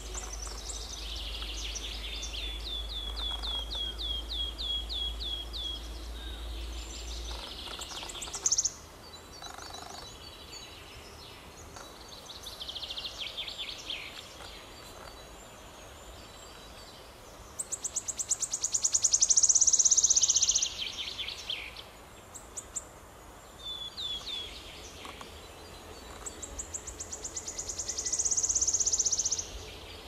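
Wood warbler singing: a run of sharp repeated notes that speeds up into a shivering trill, heard about three times, with the loudest trill a little past halfway.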